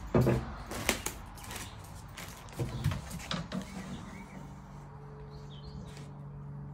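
Scattered knocks and taps on wooden porch floorboards, from a wooden stick and footsteps. A steady low hum starts about four seconds in.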